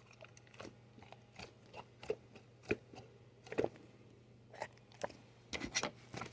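Irregular small clicks and taps of a plastic fidget toy being handled and played with, about a dozen short sharp sounds.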